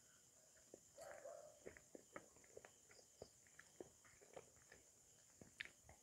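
Faint close-miked eating sounds: a man chewing rice, with wet mouth clicks and smacks every fraction of a second. A steady high insect drone runs behind.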